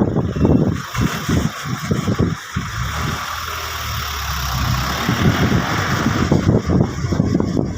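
Hyundai excavator's engine running while its hydraulic breaker hammers rapidly. The pounding pauses for a couple of seconds around the middle, leaving a steadier engine sound, then resumes.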